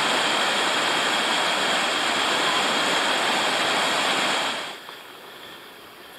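Fast-flowing rocky hill stream rushing steadily and loudly. About four and a half seconds in it cuts off abruptly, leaving only a much quieter steady hiss.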